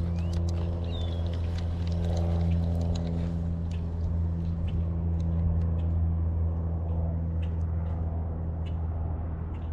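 Steady low hum of a running motor, with scattered sharp clicks and a short high chirp about a second in.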